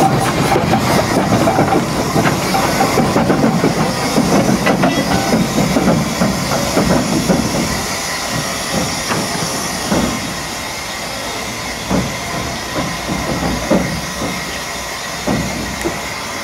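Achenseebahn steam rack locomotive No. 2 'Hermann' moving slowly past, hissing steam from its cylinder drain cocks over fast rhythmic pulsing and wheel clatter. After about eight seconds the sound thins to a steadier hiss with a few single knocks.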